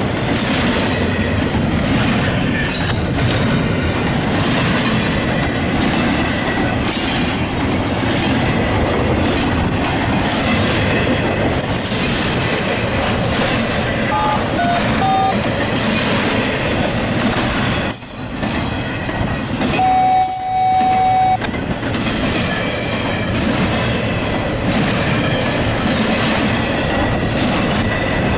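Norfolk Southern double-stack intermodal freight train rolling past at close range: a steady rumble and clatter of wheels over the rail. Partway through come a few brief high steel-wheel squeals, one of them held for about a second.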